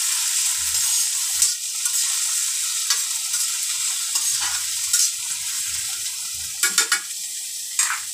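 Chopped vegetables sizzling in ghee in a kadhai while a metal spatula stirs them, scraping and clicking against the pan several times.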